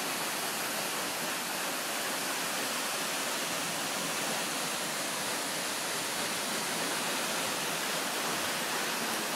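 Steady, even rush of a waterfall pouring down a rock cliff into its plunge pool.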